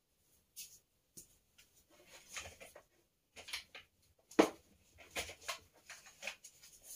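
Scattered rustling, clicks and knocks of objects being handled and moved out of sight, with one sharp knock about four and a half seconds in.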